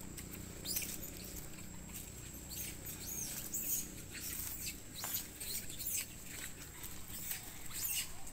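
Young monkeys squeaking: a scatter of short, high-pitched squeaks and squeals, most frequent about halfway through and again near the end.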